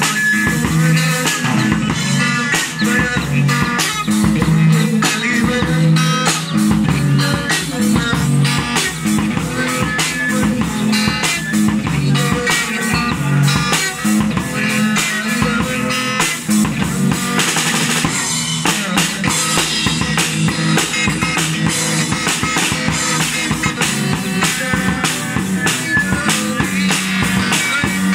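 Live drum kit played with sticks, bass drum, snare and cymbals keeping a steady beat under an amplified electric guitar.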